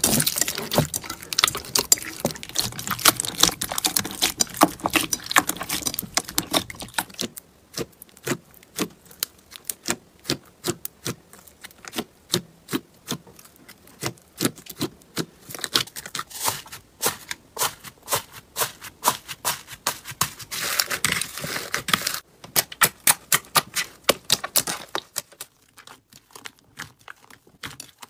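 Slime being squeezed and poked by hand, giving a dense crackle of small pops for the first several seconds, then separate sharp clicks and pops a few times a second, with one more crackly flurry about two-thirds of the way in.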